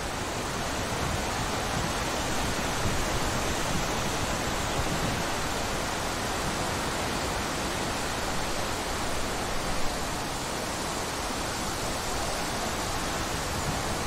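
Steady wind rushing through trees and long grass, with a low rumble of wind buffeting the microphone.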